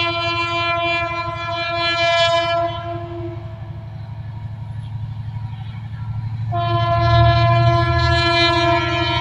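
EMD GT22-CW diesel-electric locomotive's air horn sounding a long blast that breaks off a little under three seconds in, then a second long blast starting about six and a half seconds in, over the steady low rumble of the locomotive's diesel engine.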